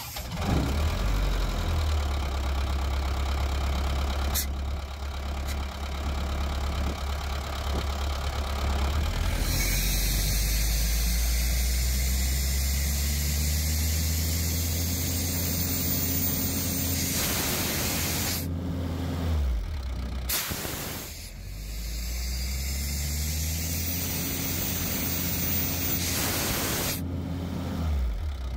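Airman PDS185 towable air compressor running on its 4-cylinder Isuzu diesel, with a steady engine note and a strong hiss of air. Twice the engine pitch climbs over several seconds and ends in a brief rush of air.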